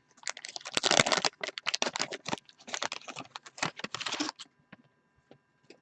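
A trading-card pack being opened and handled: the wax-paper wrapper and cards crinkling and crackling in a dense run for about four seconds, then a few light clicks.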